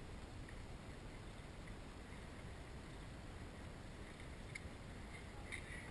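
Steady low outdoor rumble, such as wind on the microphone or distant traffic, with a few faint short high ticks near the end.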